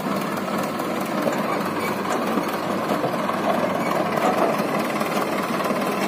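Mahindra Arjun 555 DI tractor's four-cylinder diesel engine running steadily at an even level.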